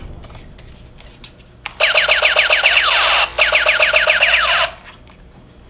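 Battery-powered toy submachine gun's electronic firing sound effect: rapid repeated falling beeps, several a second, in two bursts with a short break between them.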